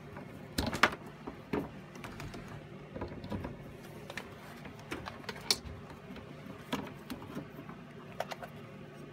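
Irregular clicks and light knocks of electrical plugs and cords being handled and plugged into a wall outlet and a router speed control box, the loudest knock about a second in.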